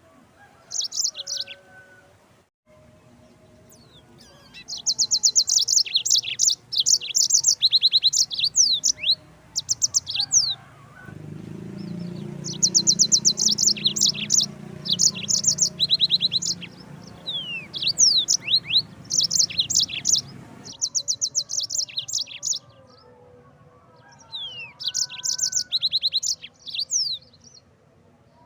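Yellow-fronted canary (Mozambique canary) singing: phrases of rapid high trills and quick sweeping notes, broken by short pauses. A low steady hum runs underneath through the middle of the stretch.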